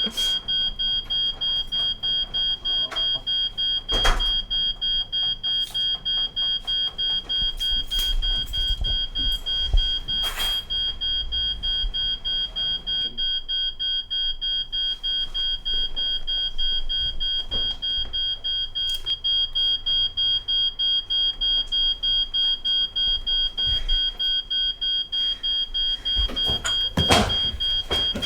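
Smoke alarm beeping without a break, a piercing high tone pulsing about two to three times a second. A few knocks fall over it.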